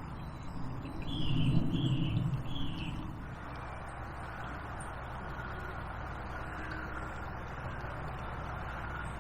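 A bird gives three short, slightly falling calls about a second in, over a louder low rumble. After that there is a steady, faint outdoor background hiss.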